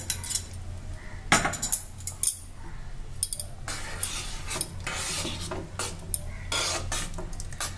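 Steel spoon stirring rice and water in an open pressure cooker, with irregular clinks and scrapes against the pot's metal sides over a steady low hum.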